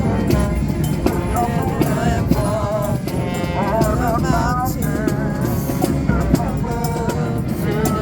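Brass band playing: horns carry a wavering melody over a steady drum beat.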